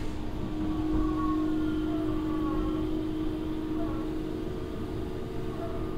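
Inside a Hokuso Railway 9100 series commuter train standing at a platform: a steady hum from the car's onboard equipment over a low rumble, with faint wavering tones above it.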